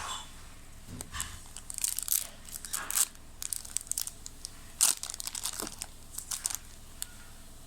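Foil Pokémon booster pack wrapper being crinkled and torn open by hand: irregular crackling and rustling in bursts for several seconds, with the sharpest crackle about five seconds in.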